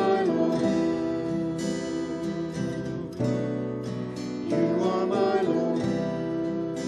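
Acoustic guitar strummed with electric bass, accompanying voices singing a hymn.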